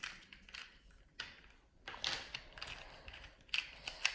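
Plastic pieces of a Rubik's cube being pulled off the cube and set down: a handful of separate sharp clicks and light clatters.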